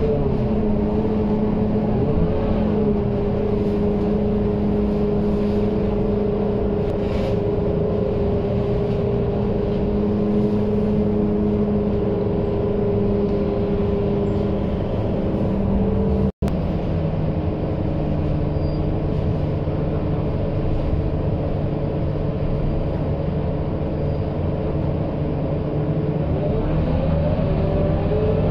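Scania K230UB bus's five-cylinder diesel engine running steadily, heard from inside the passenger cabin as the bus drives along. The sound drops out for an instant just past halfway and comes back lower in pitch. Near the end the pitch rises as the bus accelerates.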